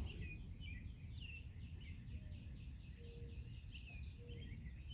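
A chorus of small songbirds chirping and twittering in quick, overlapping calls, with a few short lower notes in the second half, over a steady low background rumble.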